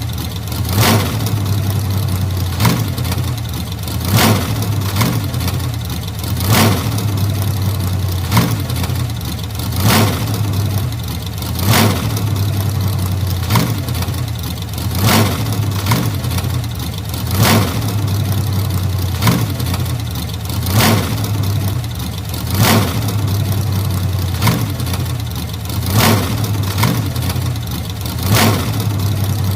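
1940s car engine idling steadily, with a sharp pop recurring about every one and a half to two seconds.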